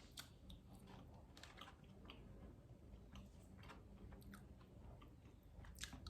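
Faint close-up chewing and biting of McDonald's French fries, with a scatter of small moist clicks and crackles.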